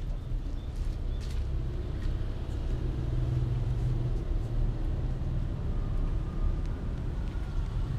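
A steady low rumble, with a few faint short clicks as a kitten eats rice off a plastic sheet.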